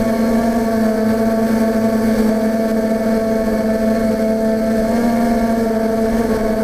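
Steady hum of a Steadidrone multirotor's electric motors and propellers in flight, heard from the drone itself, its pitch holding nearly level with a slight shift as it manoeuvres.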